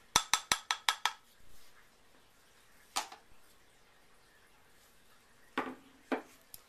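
A spatula rapped quickly against a glass beaker, about seven ringing clinks in the first second, followed by a few scattered single knocks.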